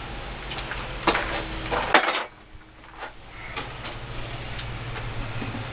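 Two loud metal clanks of a hammer striking steel, about a second in and again about two seconds in, the second a quick double blow, over a steady low hum that drops out just after the second blow; lighter metallic clicks follow.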